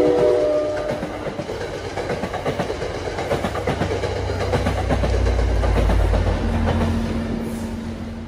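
Commuter train passing close by over a grade crossing: the tail of its horn ending about a second in, then a steady run of wheel clicks over the rail joints and rolling noise. Near the end the locomotive pushing at the rear goes by, bringing a deeper engine rumble and a steady hum.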